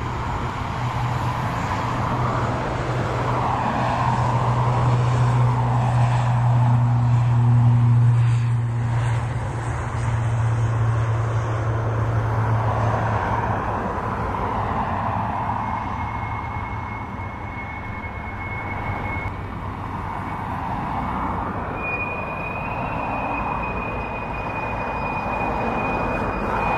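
Airbus A320 jet engines running at idle as the airliner taxis past: a steady low hum under a rushing jet noise, with a thin high whine that comes in about halfway through and steps up in pitch later on.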